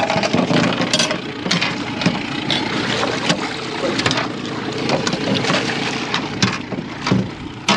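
Knocks and clatter of a speargun and gear against an aluminium boat's chequer-plate deck as a wetsuited diver climbs aboard, with water splashing and wind on the microphone.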